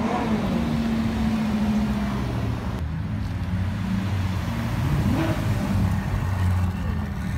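Supercar engines running as the cars roll past at low speed: first a Lamborghini Huracán's V10, then a Ferrari California's V8, with a short rev rising about five seconds in.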